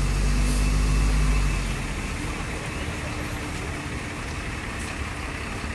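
Diesel engine of a large intercity coach running as the coach manoeuvres. It is louder for the first second and a half, then eases to a lower, steady run.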